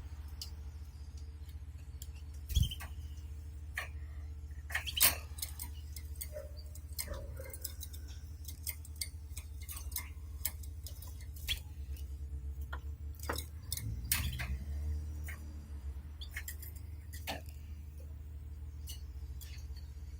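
Canaries moving about their cage: scattered light clicks and taps of feet and beaks on perches, wire and nest, with two louder knocks about two and a half and five seconds in. A steady low hum runs underneath.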